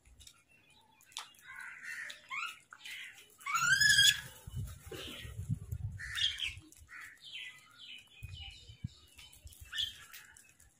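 House crows calling in short, harsh caws and squawks while feeding together, the loudest a rising call about four seconds in. Low thuds sound between about four and six seconds in.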